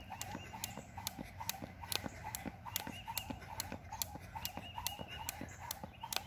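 Jump rope slapping the asphalt and sneakers landing on each jump, an even run of sharp clicks at about two jumps a second.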